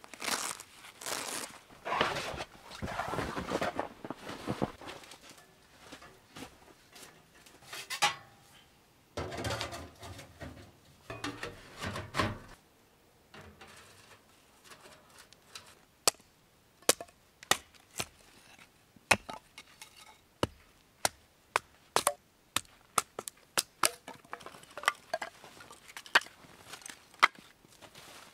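Handling noises of tent fabric and gear, rustling and scraping, for the first half. After that, a long irregular run of sharp single knocks and clicks, a second or less apart.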